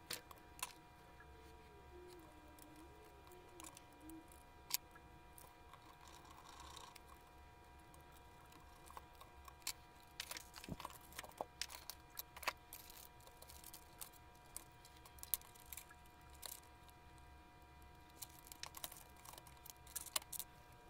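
Light clicks and taps of laptop parts being handled: the mainboard set into the plastic chassis and its ribbon cables and connectors fitted. The clicks are scattered at first and come thick and fast from about halfway through, over a faint steady hum.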